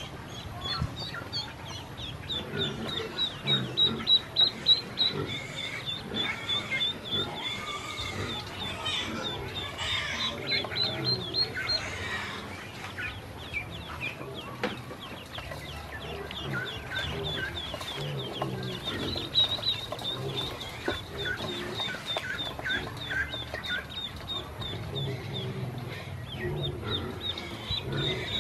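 A brood of ducklings peeping without pause, many short, high, downward-falling chirps overlapping one another.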